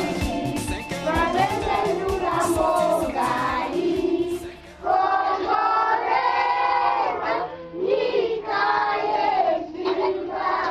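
A group of young children singing together. Sharp percussive strokes run under the singing for the first few seconds. After a brief dip about four and a half seconds in, the singing carries on with long held notes.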